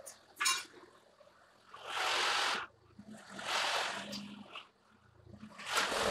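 Three short bursts of hissing noise, each under a second long, with a sharp metallic clank about half a second in.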